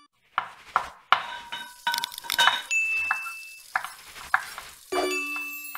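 A quick run of kitchen sound effects: utensils and dishes clinking and tapping, with a brief high tone in the middle and a ringing metallic ding about five seconds in.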